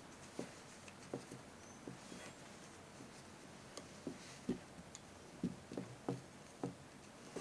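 Wooden knitting needles clicking and tapping softly against each other while purl stitches are worked in wool yarn: a dozen or so faint, irregular taps.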